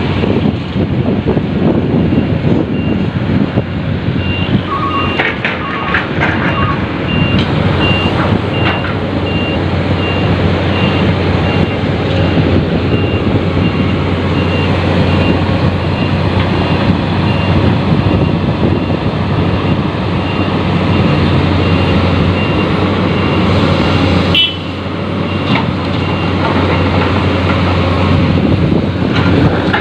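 Heavy diesel machinery, an excavator and a dump truck, running steadily while the truck is loaded. A high warning alarm beeps over and over through most of it, with a few knocks, the strongest a little over halfway through.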